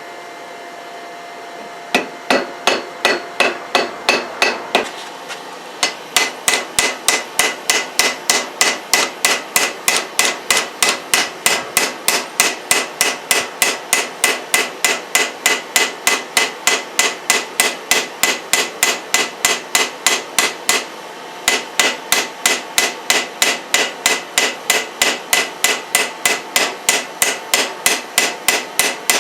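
Blacksmith's hand hammer striking hot leaf-spring steel on an anvil in a steady rhythm of about three blows a second, each blow ringing. The hammering breaks off briefly about five seconds in and again about twenty-one seconds in.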